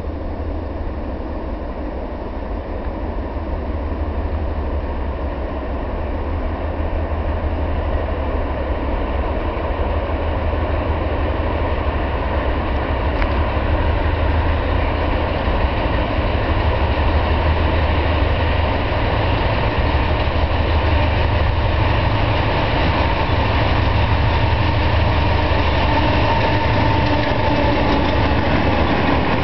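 Two GE C30-7 diesel-electric locomotives working hard as they pull a freight train up a grade, a heavy low engine rumble that grows steadily louder as they approach. A thin whine rises out of it near the end.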